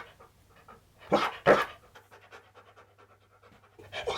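Husky-malamute dog panting. Two loud breaths come about a second in and another near the end, with quieter quick panting between.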